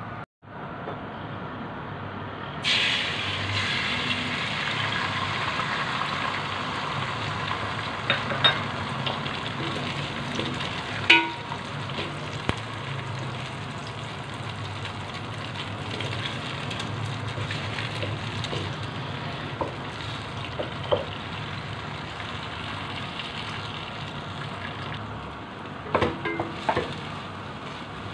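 Beaten eggs frying in hot oil in a metal pot: a sizzle starts suddenly about three seconds in and runs on steadily. A spatula knocks against the pot a few times, and near the end it scrapes and clatters as the egg is broken up.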